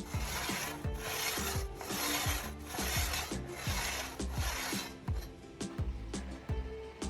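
Six rough rasping strokes of a hand tool being worked back and forth, about one every 0.8 seconds, stopping about five seconds in.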